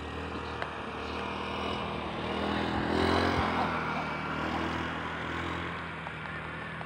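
An unseen motor vehicle's engine hums steadily. It grows louder to a peak about three seconds in, then fades.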